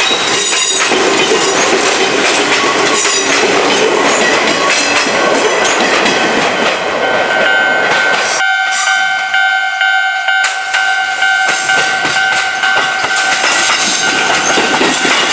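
Izuhakone Railway Sunzu Line electric train passing close by over a level crossing, its wheels clattering on the rails. About seven seconds in, a steady high whine joins the rumble and holds for several seconds.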